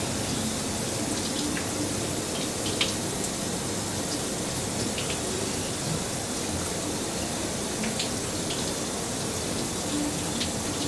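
Running water pouring and splashing onto a plastic cutting board, a steady rush, with a few light clicks.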